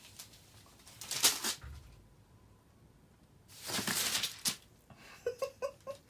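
A cat chewing and clawing at a corrugated cardboard scratching pad, making scratchy, tearing rustles in a few bursts: one about a second in, a louder one around four seconds in, and a quick run of small clicks near the end.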